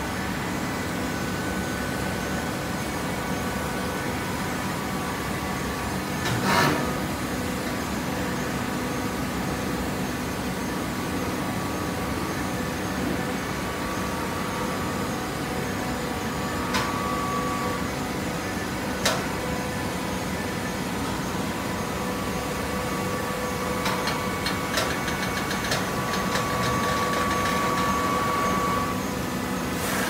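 Automatic horizontal waste paper baler running: a steady hydraulic machinery hum with a few sharp metallic clanks, the loudest about six seconds in. Near the end it grows slightly louder, with a held whine and a quick run of clicks.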